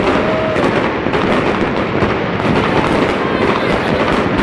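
Many fireworks and firecrackers going off at once in a dense, unbroken crackle of bangs and pops, with a short whistle near the start.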